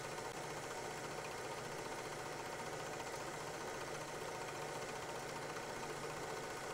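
Faint steady mechanical hum with hiss, unchanging throughout, with no distinct events.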